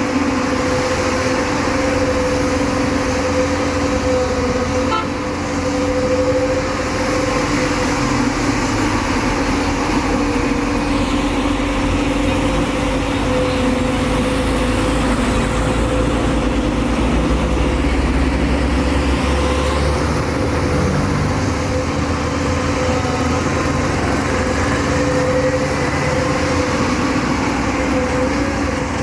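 JCB backhoe loader's diesel engine running steadily with a held whine while it digs, its low rumble growing heavier for several seconds in the middle.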